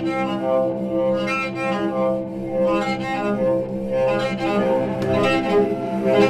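Film-score music: a bowed cello playing long held notes over a sustained low string bass.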